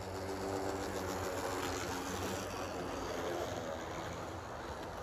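HO-scale model WAP-4 electric locomotive running past, its motor humming and its wheels rumbling on the rails; the hum is strongest in the first two or three seconds as the locomotive goes by, then fades, leaving a steady rolling rumble as the coaches pass.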